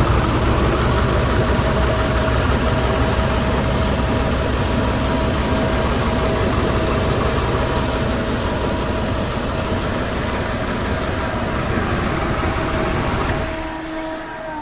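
GM 8.1 L Vortec V8 idling with its valve cover off and the ignition coils on one bank unplugged, so it runs on one bank only. It shuts off about a second before the end.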